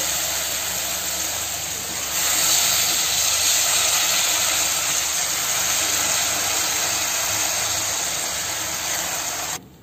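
Steady sizzling of oil and vegetables frying in the base of a pressure cooker, with the dry rice just added; it gets a little louder about two seconds in and cuts off just before the end.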